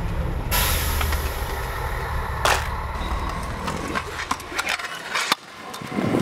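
A steady low rumble with a hissing rush, then a stunt scooter on concrete: hard wheels rolling and a run of sharp clacks and knocks as the rider rides up onto and along a ledge, with one loud knock about five seconds in.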